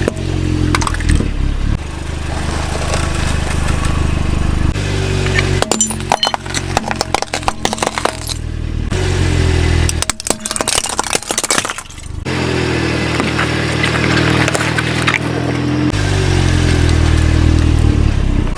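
A car engine running while objects are crushed under its tyres. Two bursts of many sharp cracks and crunches come about six and ten seconds in.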